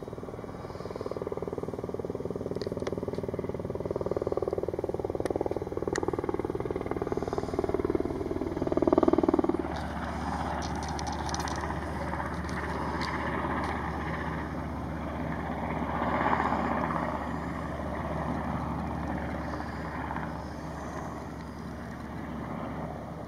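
Firefighting helicopter flying, a steady rapid rotor beat over engine drone. It swells loudest about nine seconds in, then settles into a lower, even hum.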